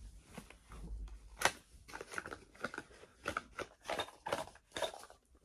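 Gift packaging being handled and opened: irregular crinkling and rustling with short sharp crackles.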